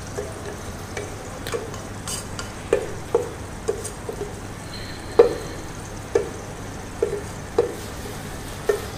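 Wooden spatula scraping and knocking against a metal bowl as soaked chana dal is pushed into a pot of frying chicken masala: a series of irregular knocks, the loudest about five seconds in, over a steady low sizzle.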